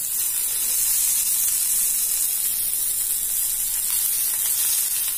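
Hot oil sizzling steadily on a tawa as spoonfuls of oil are poured around stuffed bitter gourds that are shallow-frying.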